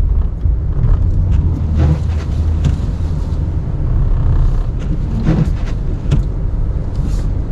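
Plow truck's engine running at low speed with a steady low rumble as the truck is backed in.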